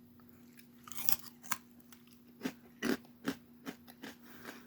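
A person chewing crunchy baked protein crisps made of rice and pea protein: a bite about a second in, then crunching chews about two to three a second.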